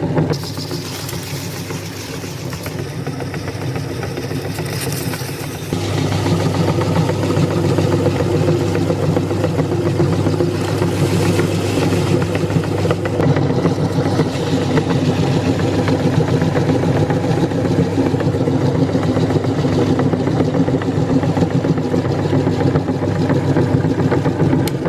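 Electric meat grinder running, a steady motor hum with grinding clatter, growing louder and heavier about six seconds in.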